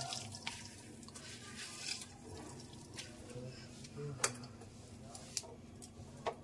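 Boiled soya chunks squeezed by hand, water squishing out and dripping into the pan of cooking water, with three short sharp clicks in the second half.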